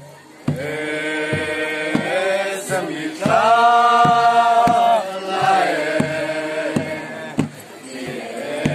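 A group chanting a traditional folk song together in long, held notes, the longest and loudest note about three seconds in. A double-headed drum is struck steadily about twice a second under the voices.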